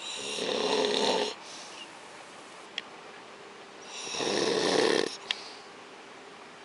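A man snoring loudly and rhythmically in his sleep: two long snores about four seconds apart, each swelling and then cutting off. A short click is heard twice between them.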